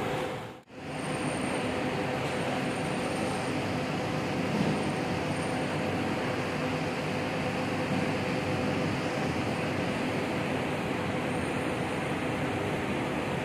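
Scania coach's diesel engine running steadily as the bus moves slowly, a continuous engine noise with a low steady hum. The sound drops out briefly under a second in, at a cut.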